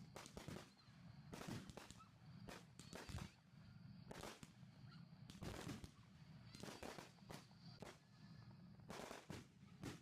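Consumer fireworks going off: about a dozen irregular, faint bangs and pops, many coming in close pairs, each with a short echo. A steady low hum sits underneath.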